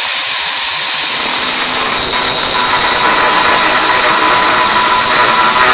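Angle grinder spinning a 1 3/8-inch diamond core bit, dry-drilling into 2 cm granite: a loud, steady high-pitched whine over a grinding hiss. It grows louder about two seconds in.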